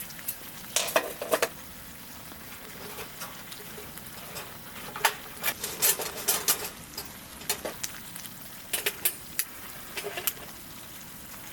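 Irregular light clinks and clicks of small hard objects being handled, in scattered clusters, some with a brief ring.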